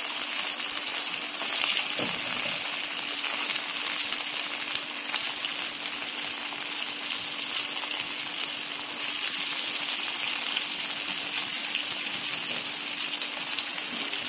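Pieces of steamed wheat-flour and chana dal phare sizzling in hot mustard oil with cumin seeds in a kadhai. The steady frying hiss swells several times as more pieces are dropped into the oil.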